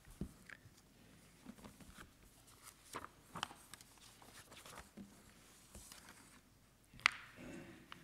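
Faint scattered clicks and rustles of papers and a book being handled at a lectern, with a sharper click about seven seconds in.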